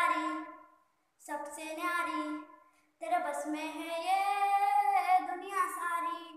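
A young boy singing solo without accompaniment, in three phrases with short breaks between them, the last a long held line.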